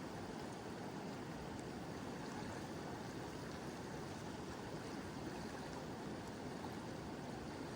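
Mountain river flowing, a steady rushing of water, with gentle rain falling.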